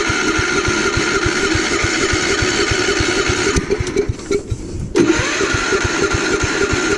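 Gravely Commercial 12 snowblower engine being turned over in two starting attempts, the first stopping about three and a half seconds in and the second starting about five seconds in, without the engine catching and running. The trouble is one its owner suspects is fuel starvation.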